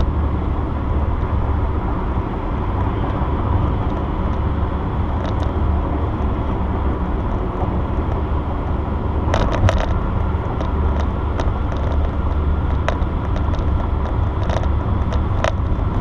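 Steady car road noise heard from inside the cabin at highway speed: a continuous low rumble from the moving car. A cluster of light clicks comes about nine and a half seconds in, with a few scattered ticks after.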